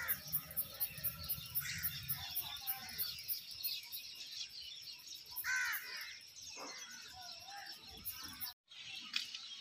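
Birds calling and chirping, with a louder arched call about five and a half seconds in, over a fast high ticking in the first half. The sound cuts out briefly near the end.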